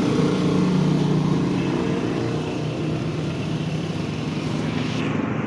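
A steady low mechanical hum of a motor or engine running, with an even drone and no change in speed.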